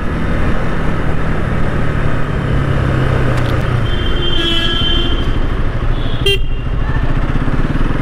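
Bajaj Pulsar NS200's single-cylinder engine running steadily on the move, with wind and road rush. A vehicle horn sounds about four seconds in, and a short toot follows just after six seconds.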